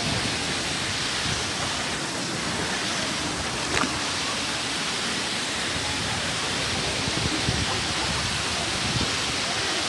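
Waterfall rushing: a steady, even roar of falling water, with one short click about four seconds in.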